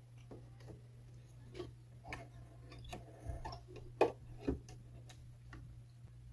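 Faint, scattered small clicks and taps of hands threading a Bernina sewing machine, drawing thread through the guides and down to the needle, with two sharper clicks about four seconds in.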